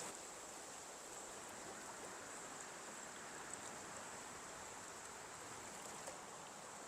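Faint, steady rush of a river running high.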